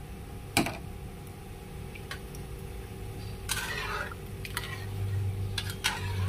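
A metal fork clinking and scraping against a wok while stirring ginger and spring onion stalks in hot water: one sharp clink about half a second in, lighter taps later, and a short swish of water about halfway through. A low hum comes in near the end.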